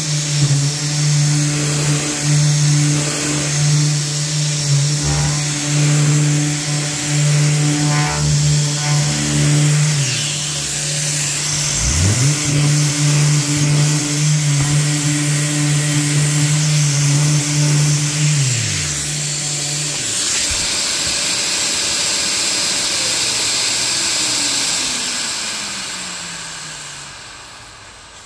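SurfPrep power sander running on a primed cabinet door: a steady hum over the hiss of its dust extraction. It winds down and spins back up about a third of the way in, then stops about two-thirds through. A hissing whine that is left running then slowly winds down in pitch near the end.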